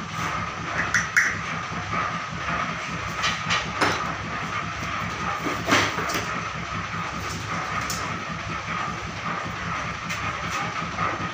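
A steady mechanical hum with hiss from a switch-moulding workshop. Scattered sharp clicks and knocks, a few around a second in, several between about three and four seconds, and one near six seconds, come from metal mould parts and tools being handled at a hand-operated moulding press.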